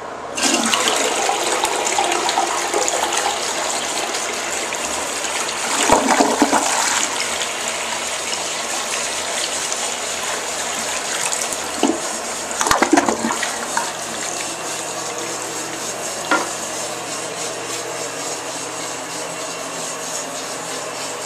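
Crane Plumbing Atlas toilet flushing: a sudden rush of water, with two louder surges about six and thirteen seconds in as it double-flushes, then steady running water as it refills.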